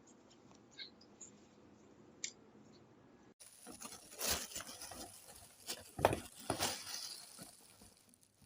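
Faint scattered clicks, then after an abrupt change about three seconds in, louder irregular rustling and clattering, with sharp clacks near the middle: objects being handled.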